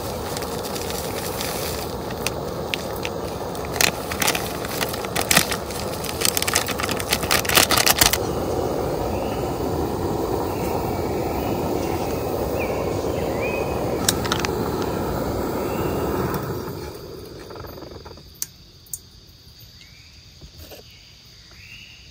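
Portable gas canister stove burning under an aluminium kettle with a steady hiss, while the heating water crackles and ticks for a few seconds. About three-quarters of the way through the hiss fades out, leaving a quiet background with faint chirps.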